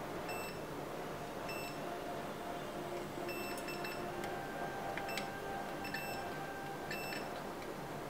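Digital multimeter's continuity beeper giving about eight short, high chirps at irregular intervals, some in quick pairs, as the probes touch small capacitors on a TV main board. Brief chirps rather than a held tone.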